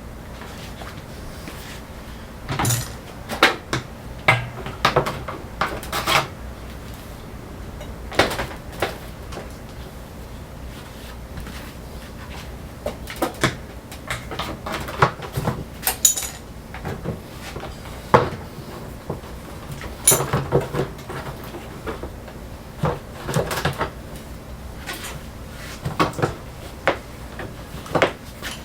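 Irregular clanks, clicks and knocks of tools and washing-machine parts being handled and fitted, some in quick clusters and others spaced several seconds apart.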